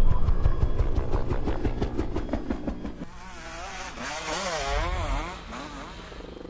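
Motocross dirt bike engines running hard: a loud, rapid engine note for about the first three seconds, then a quieter bike whose pitch rises and falls several times, fading near the end.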